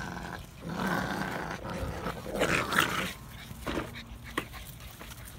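American Bully puppies growling while they play-fight over a sock toy. The rough growling is loudest for about the first three seconds, then dies down to a few short, quieter sounds.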